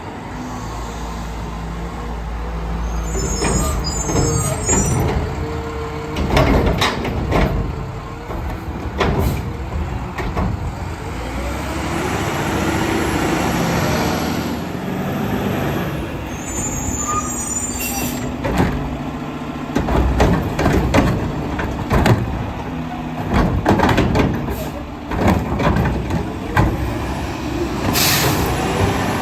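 Mack LR front-loader garbage truck with a McNeilus Meridian body at work: the diesel engine runs and revs and the air brakes hiss a couple of times. Many sharp bangs and clatter follow, thickest in the second half, as the Curotto Can arm and forks handle and dump the carts.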